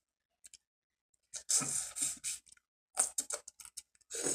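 Crab leg shells cracking and clicking as they are snapped and picked apart by hand, in a series of short sharp cracks with gaps between them, and a louder eating sound near the end.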